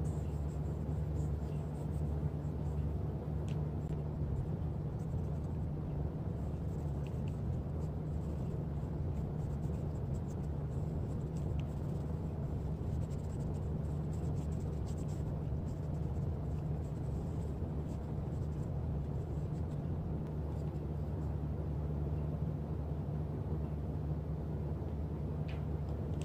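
A walnut butter knife being rubbed with a cloth: soft, steady rubbing and scuffing with a few faint ticks. A steady low hum runs under it throughout.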